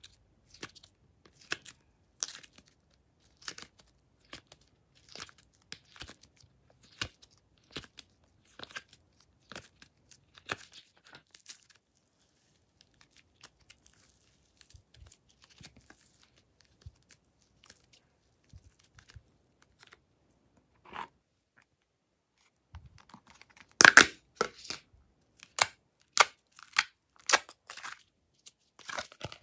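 Glossy slime handled by hand, peeled, stretched and squeezed, giving sticky crackles and small clicking pops. The pops grow louder and closer together for the last five seconds or so.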